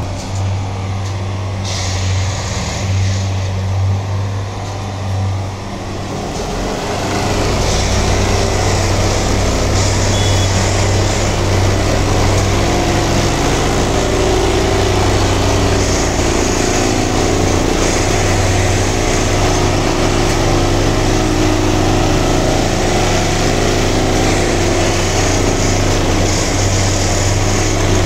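Diesel engine and machinery of a Plasser dynamic track stabilizer running close by, with a steady low hum. About seven seconds in it grows louder and fuller, then holds steady.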